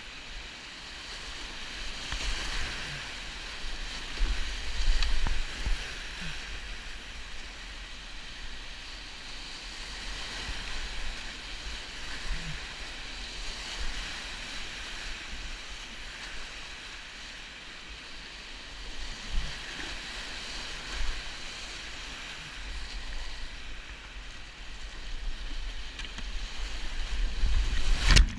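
Whitewater rapids rushing around a kayak, a steady roar of churning water that swells and eases, with low rumbling buffeting on the microphone. A sharp, loud knock comes just before the end as the kayak plunges through a drop.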